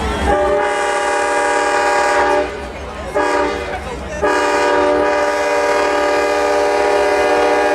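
Diesel locomotive's multi-chime air horn sounding a steady chord: a long blast of about two seconds, a short blast, then a longer blast of about four seconds.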